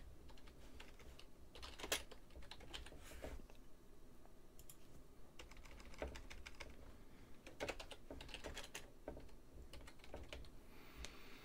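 Faint typing on a computer keyboard: separate keystrokes in short, scattered clusters with pauses between them.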